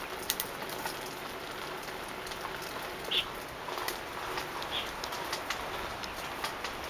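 Bicycle rolling along a paved woodland path: steady rushing wind and tyre noise with scattered rattling clicks, and a few short high chirps about three and five seconds in.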